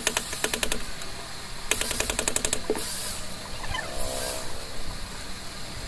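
Buildskill BBPSD10RE cordless screwdriver drill backing screws out of a home-theatre speaker cabinet: two short bursts of rapid, even clicking at about ten a second, each under a second long.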